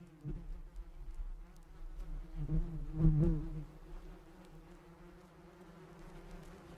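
A bee buzzing close by, its hum wavering in pitch and swelling as it passes, loudest about three seconds in.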